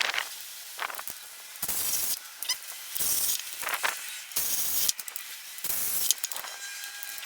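Short hissing bursts, about four of them, each roughly half a second long: an air tool run in brief pulls while the ball joint bolts are driven home.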